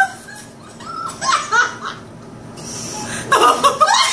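Several women laughing and giggling in bursts, with a quieter lull in the middle.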